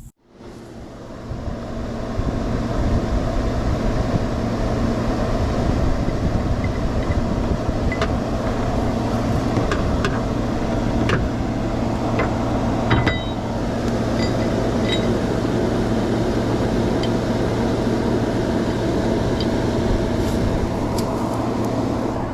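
Pickup truck engine running steadily, building up over the first couple of seconds, while it drags a fallen tree on a tow rope; a few sharp clicks or snaps come through around the middle.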